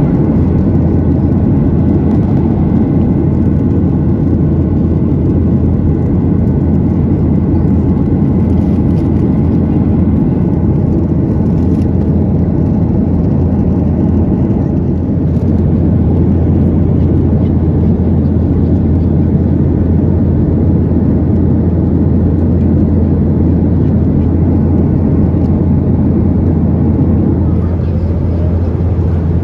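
Boeing 737-800 cabin noise in flight: a loud, steady low rumble of the engines and rushing air that does not change.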